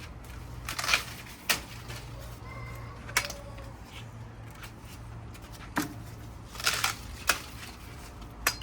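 Irregular rustles and short sharp clicks, with gaps of up to two seconds between them, over a steady low hum.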